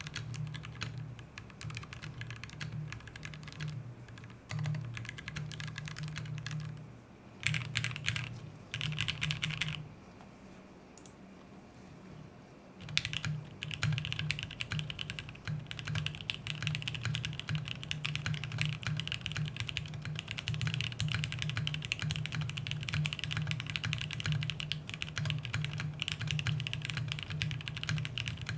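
Continuous fast typing on a mechanical keyboard with lubed linear switches and a polycarbonate plate: Gateron Milky Yellows first, then JWK Black linears. There is a near pause of about three seconds about ten seconds in before the typing picks up again.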